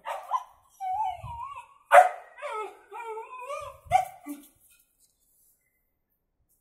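Dog barking in a standoff with a cat: three sharp barks about two seconds apart, with long wavering whining cries between them, all stopping after about four and a half seconds.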